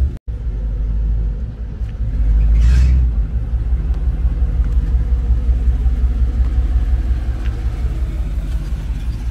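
1964 Chevrolet Impala's engine idling, with a brief louder surge, like a short rev, about two to three seconds in.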